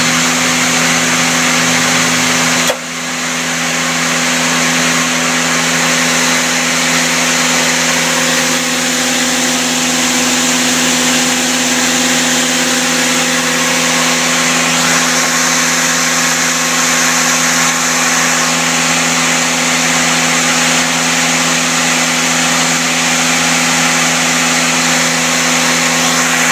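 Mazak Quick Turn 20 CNC lathe spindle running at its top speed of 5,000 RPM: a loud, steady whine of several tones over a bright hiss, just settled after spinning up. A brief click and dip in level about three seconds in.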